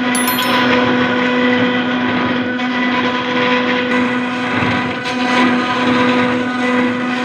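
CNC router spindle running steadily while cutting granite: a constant motor whine with even overtones over a grinding, hissing noise, starting with a sharp click.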